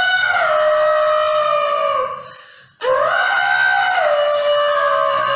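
A child imitating an elephant's trumpeting with his voice: two long, high calls, each rising at the start, held, then stepping down in pitch and falling away at the end, the second starting about three seconds in.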